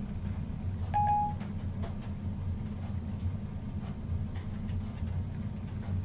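iPhone 4 playing Siri's short electronic chime about a second in, a single steady beep after the spoken request, over a steady low hum.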